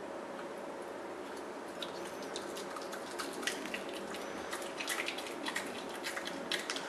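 Crab-eating raccoon chewing a ripe banana: irregular wet clicks and smacks that start about two seconds in, over a steady faint room hum.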